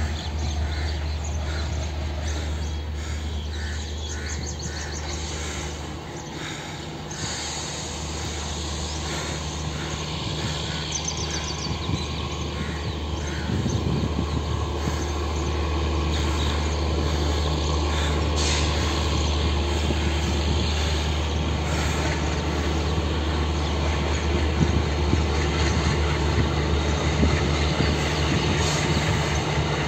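WDG3A diesel-electric locomotive's ALCO 251 sixteen-cylinder engine running under load as it pulls the train out. It is a steady low drone that grows louder from about a quarter of the way in as the locomotive comes closer.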